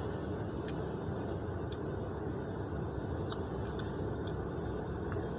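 Steady low vehicle rumble, with a few faint clicks over it.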